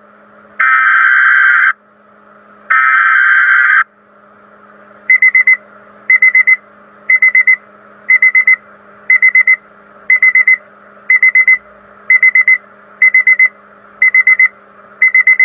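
Weather radio emergency alert: two screeching bursts of SAME digital header data, each about a second long, then a high-pitched alarm that beeps in quick clusters about once a second, eleven times, over a faint steady hum.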